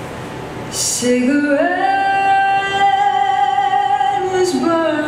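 Singing with music: a voice slides up into one long held high note about a second in, then steps down to lower notes near the end.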